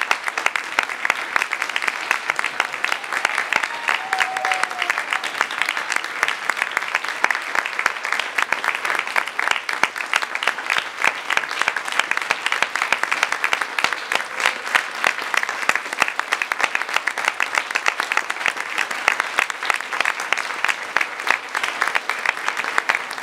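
Audience applauding steadily: a dense, even clatter of many hands clapping.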